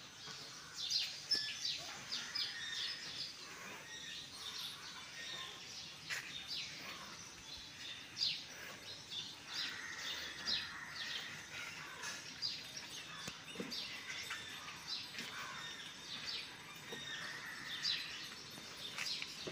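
Several birds chirping and calling, many short high chirps scattered throughout over faint background noise.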